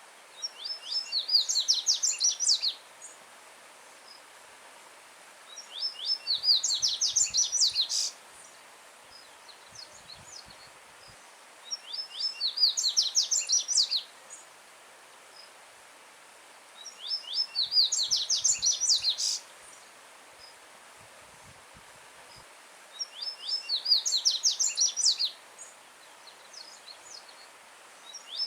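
A coleiro-baiano seedeater singing its song five times, each a rapid, high, two-second run of sharp notes, about every five to six seconds, with a sixth song starting at the very end. A faint, steady stream hiss runs underneath.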